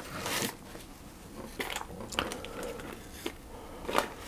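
Rustling and crinkling of the baking paper under a sheet of ready-rolled puff pastry as it is picked up and handled: a soft swish at the start, then a few short crackles, the loudest near the end.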